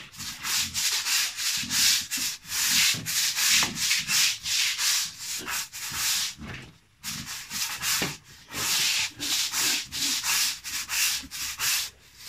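Rhythmic scrubbing strokes on a floor being cleaned, about two a second, with a short pause about seven seconds in.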